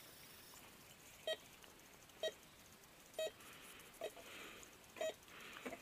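Metal detector beeping as its search coil is swept back and forth over the ground: six short single-tone beeps, about one a second, signalling a buried metal target under the coil.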